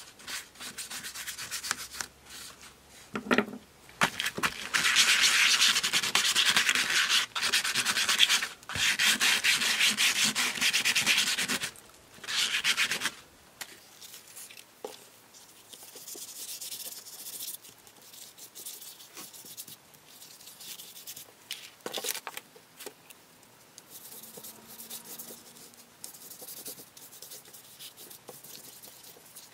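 Paintbrush scrubbing a thick gesso and glaze medium mix onto paper album pages, a scratchy rhythmic brushing. It is loudest in long stretches from about five to twelve seconds in, then goes on as softer, patchier rubbing.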